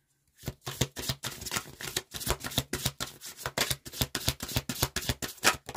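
A deck of reading cards shuffled by hand: a quick, uneven run of card slaps and clicks that starts about half a second in and goes on with several strokes a second.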